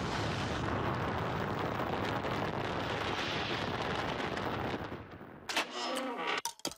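Cartoon nuclear-explosion sound effect: one long, dense blast rumble that holds for about five seconds, then dies away. A few short, separate sounds follow near the end.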